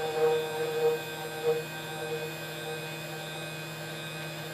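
Stepper motors of a 6090 CNC router driving the X axis at a steady jog speed, a steady multi-tone motor whine. It is a little louder and uneven in the first second and a half. The machine is moving the axis while its steps-per-millimetre setting is being calibrated.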